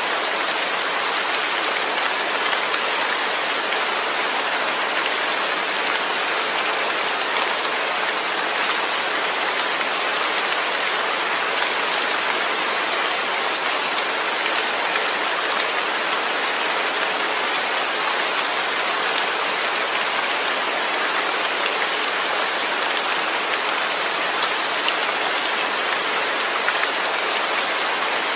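Steady heavy rain with no thunder, an even hiss of falling drops that keeps the same level throughout.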